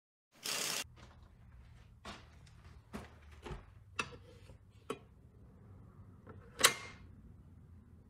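Irregular knocks and clicks of things being handled, about half a dozen over several seconds, with the sharpest clack about two-thirds of the way in. They sit over a faint low hum, after a short hiss near the start.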